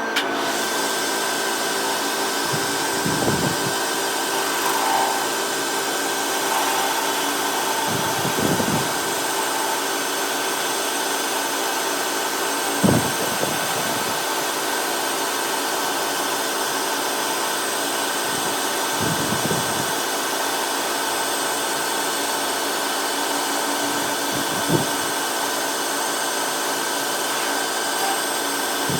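A power tool's electric motor running steadily at a constant speed, with a few short knocks spaced several seconds apart.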